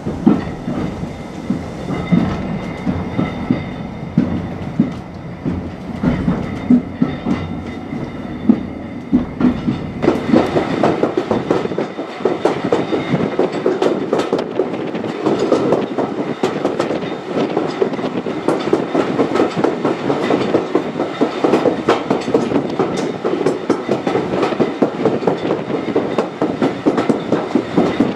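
Train wheels clattering over rail joints, heard from inside a wooden guard's van on a moving train: a steady rumbling run full of short knocks and rattles. The sound gets brighter and a little louder about ten seconds in.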